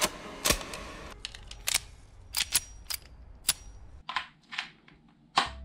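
Sharp metallic clicks of a handgun's mechanism being worked, about a dozen over three and a half seconds. Then, after about four seconds, a few softer clicks as the battery grip is fitted to a DJI RS2 gimbal.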